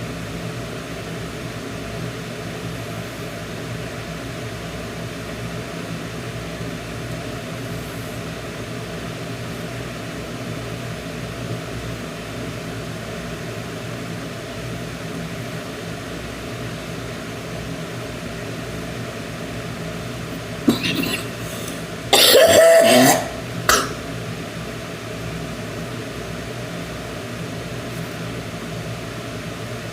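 A woman coughing in a short fit about two-thirds of the way through: one brief cough, then a louder cough lasting about a second, then a small last one. A steady electrical hum runs underneath throughout.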